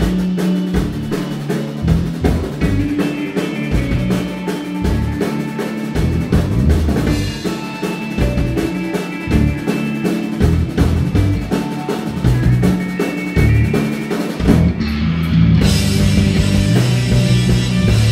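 Live rock band playing: two electric guitars, an electric bass and a drum kit.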